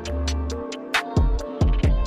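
Music with a beat: a sustained deep bass and chords under sharp snare or clap hits, with deep bass drum hits whose pitch drops quickly about a second in and again past halfway.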